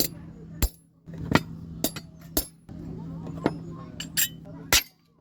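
Sharp metallic strikes on steel, about eight in an irregular rhythm: a small hammer working the rivets and rings of riveted chainmail.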